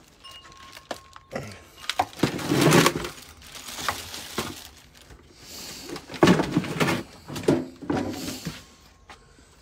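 Handling noise from a phone held against clothing: rustling and knocks in several bursts, loudest about two seconds in and again from about six seconds, with sharp clicks between.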